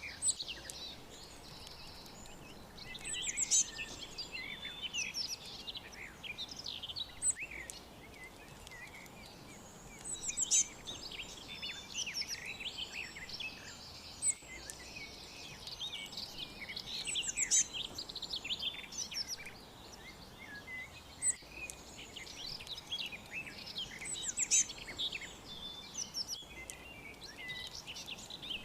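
A chorus of small birds chirping and twittering, many quick high chirps overlapping, with louder flurries every few seconds over a faint background hiss.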